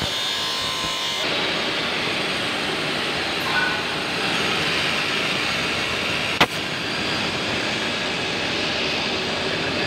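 Industrial CNC nesting router running with its spindle working over a board panel: a steady, loud machine noise, with one sharp click about six and a half seconds in.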